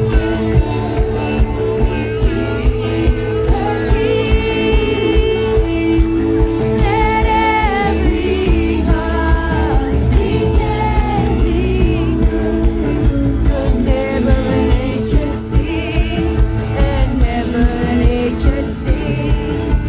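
Live band and singers performing a Christmas carol, with a steady beat of about two strokes a second under the sung melody.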